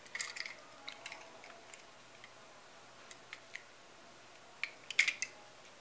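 Light, scattered clicks and taps from two small diecast toy cars being handled and turned over in the hand, with a cluster of sharper clicks near the end.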